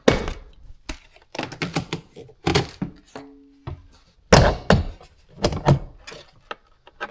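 Plastic interior trim panels being pried and pulled off a truck's door sills, giving a series of sharp snaps and thunks as their retaining clips let go. A brief squeak-like tone sounds about three seconds in.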